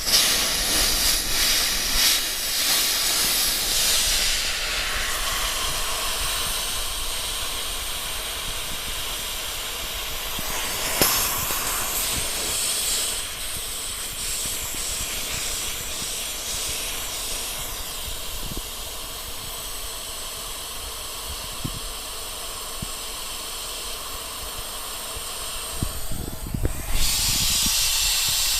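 Pressurised air compressor tank blowing down through its open drain valve: a loud, steady hiss of air forcing out the condensed water collected in the tank. The hiss is strongest at first and eases as the tank pressure falls, then drops out briefly near the end and comes back stronger.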